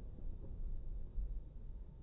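Low, dull rumble of fireworks dying away after a burst, with no distinct bang.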